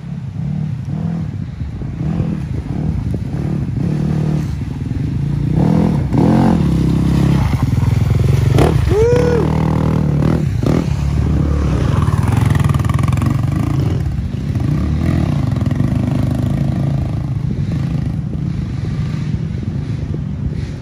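Dirt bike engine revving in short bursts as it pulls through a muddy rut, growing louder to a peak about eight seconds in and then easing off.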